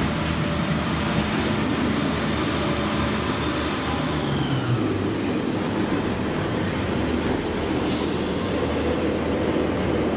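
Northern Class 142 Pacer two-car diesel multiple unit passing close along the platform, its underfloor diesel engines running steadily. The engine note drops about halfway through as the cab goes by.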